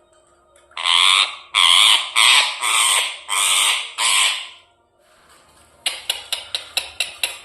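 Pet parrot screeching: six loud, harsh squawks in quick succession, followed near the end by a fast run of sharp clicks, about seven a second.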